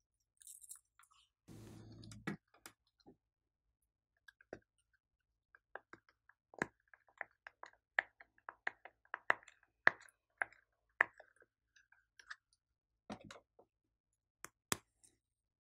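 Bubbles of a silicone pop-it fidget toy pressed one after another: a run of sharp pops, each with a short ring. A brief rustle comes about two seconds in, and a few plastic clicks near the end.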